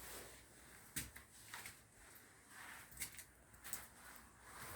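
Near silence with a few faint, short clicks.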